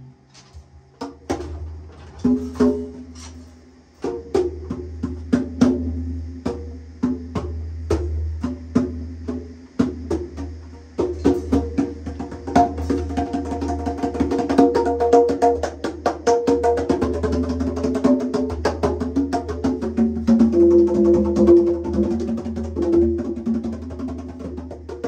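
Instrumental music: sharp percussion clicks in a steady beat over a low sustained bass, with a fuller melody coming in about eleven seconds in.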